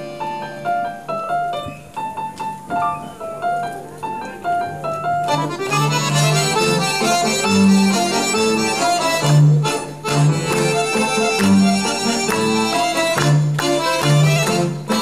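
Accordion orchestra playing a medley of Greek popular tunes: a single melody line over a bass line for about the first five seconds, then the full ensemble comes in, louder and fuller.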